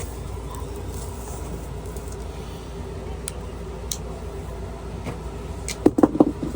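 Steady low rumble with a few faint clicks, then a quick cluster of four or five loud knocks and rattles near the end.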